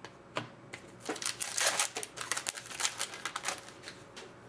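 A hockey card pack's wrapper crinkling and tearing as it is opened, then the cards scraping out. A quick run of crackles and scrapes, loudest a second or so in.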